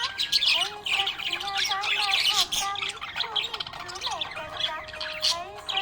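Budgerigars chirping and chattering, a dense run of quick, high chirps and squawks with a lower warbling line underneath.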